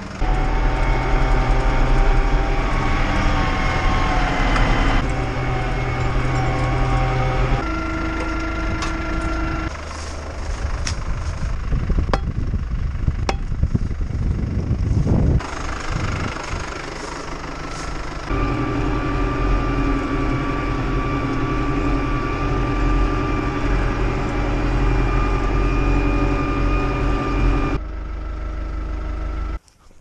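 A Deutz-Fahr Agroplus 85 tractor's diesel engine runs steadily. Its pitch and loudness jump abruptly several times. Between these jumps there is a noisier stretch with a couple of sharp clicks.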